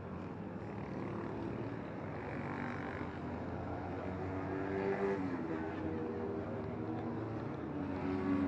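Motorcycle engines running, several steady tones that shift in pitch and grow louder toward the end.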